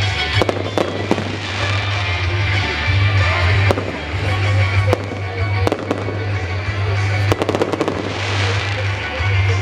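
Fireworks going off: scattered sharp bangs, with a quick run of cracks about seven seconds in, over loud music with a heavy, steady bass.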